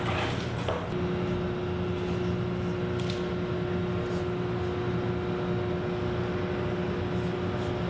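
Steady machinery hum with a constant mid-pitched tone, heavy industrial plant running. A brief rush of noise at the start and a single click about three seconds in.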